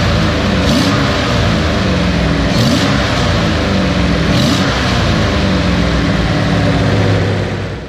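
Datsun L-series inline-six engine revved by hand at the throttle and let fall back, its pitch rising and falling about three times. This is a demonstration of backfiring on rapid deceleration, which the owner traces to an ignition coil with too high a primary resistance that was also hooked up backwards.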